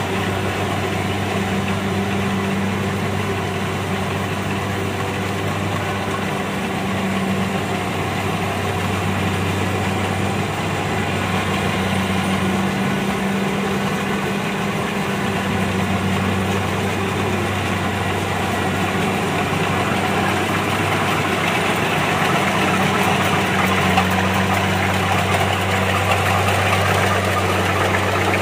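Kubota DC-70 combine harvester running steadily as it works through a rice field: a constant diesel engine hum under the noise of its cutting and threshing machinery, the low hum weakening briefly about halfway through.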